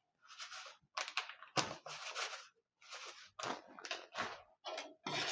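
A spatula scraping and stirring a dry, finely ground mixture in a kadahi, in short irregular strokes about two a second.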